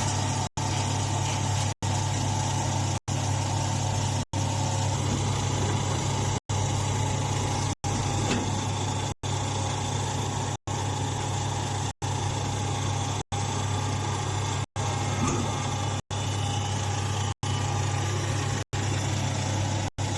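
Stationary straw baler machinery running with a steady low hum. The sound is cut by a brief silent dropout a little more often than once a second.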